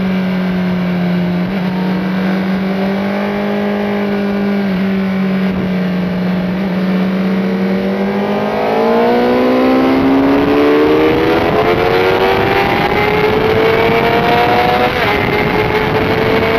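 Sport motorcycle engine heard onboard. It holds a steady note through a long corner, then revs higher and higher as the bike accelerates out onto the straight. Near the end the note dips briefly at a gear change and then climbs again, with wind noise growing as speed builds.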